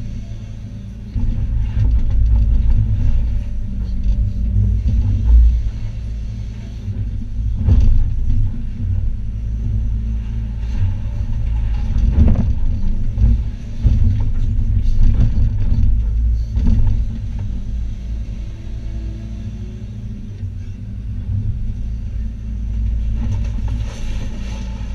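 Hitachi ZX280 excavator's diesel engine and hydraulics running hard during demolition, heard from inside the cab as a steady deep rumble. A few sharp knocks and crashes of rubble and debris stand out over it, about a third, half and two-thirds of the way through.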